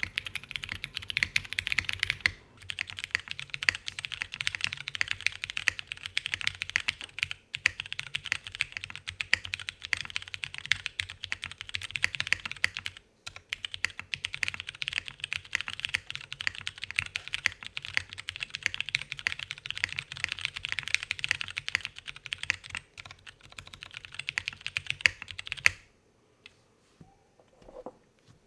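Fast, continuous typing on a KBD8x MK3 mechanical keyboard with Cherry MX2A Purple switches on a polypropylene plate, with a few brief pauses. The typing stops about 26 seconds in.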